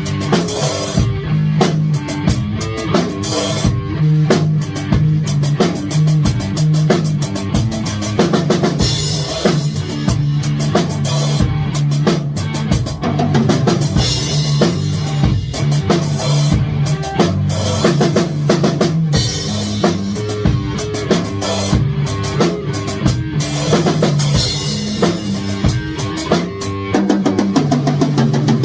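Rock music with a drum kit playing a steady beat.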